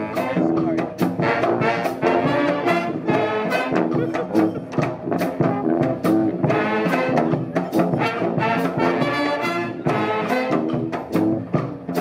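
Street brass band playing a lively tune: trumpets, saxophones and sousaphone over a steady bass drum beat.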